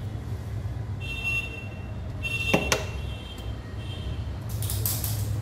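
Steady low hum of workbench equipment while a mobile CPU's pads are being cleaned. Two light clicks come about halfway through, and a short scraping hiss near the end.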